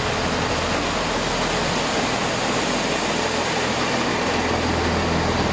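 British Rail Class 165 diesel multiple unit pulling into the platform and sliding past: a steady rush of wheels on rail with the diesel engines' low drone, which grows about four seconds in.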